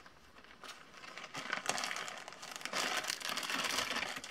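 Clear plastic project bag crinkling as it is handled, starting faintly about a second in and growing louder in the second half.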